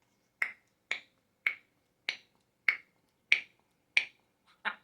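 A steady run of sharp finger-snap sounds, seven evenly spaced at a little under two a second, followed by two quieter snaps near the end.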